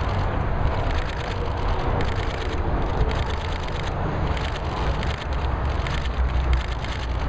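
Many camera shutters clicking in rapid, overlapping bursts as press photographers shoot, over a steady low rumble of wind on the microphone and outdoor noise.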